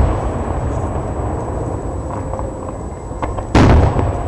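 Aerial firework shells bursting. A loud boom dies away at the start, a steady low rumble runs between the booms, and a second loud boom comes about three and a half seconds in.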